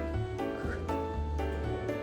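Background music: a melody of steady pitched notes over a bass line.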